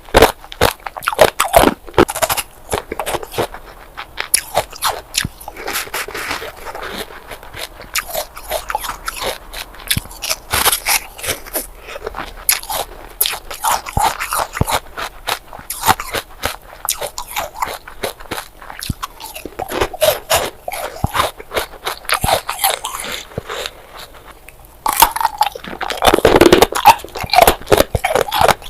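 Close-miked crunching and chewing of ice bars, a dense run of sharp cracks as the ice is bitten and ground between the teeth. It eases off for a few seconds after the middle, then loud crunching starts again near the end.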